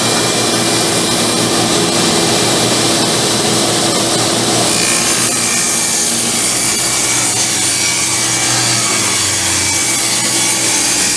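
Table saw running and ripping a long oak board lengthwise for drawer fronts: a loud, steady sawing whir with a motor hum, growing brighter about halfway through as the blade cuts.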